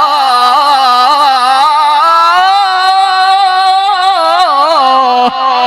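Man reciting the Quran in the melodic mujawwad style, holding one long, high, ornamented note on 'Allah' with rapid turns of pitch, through a PA microphone. The voice stops shortly before the end and the audience begins to cheer.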